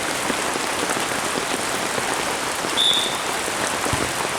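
Heavy rain pouring down, a steady dense hiss of drops, with a brief high-pitched tone about three seconds in.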